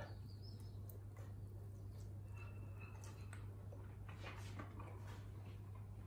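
Faint mouth sounds of a man chewing a bite of beef brisket, a few soft smacks and clicks, over a steady low hum.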